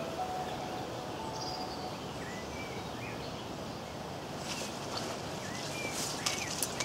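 Outdoor pondside ambience: a steady rush of wind, with birds whistling and chirping throughout. A few sharp clicks come near the end as fishing tackle is handled.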